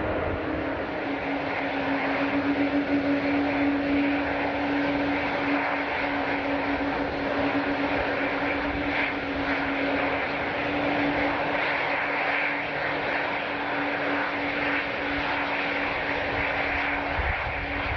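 Passenger airliner's engines running steadily: a continuous engine noise with one held low tone through it, keeping an even level throughout.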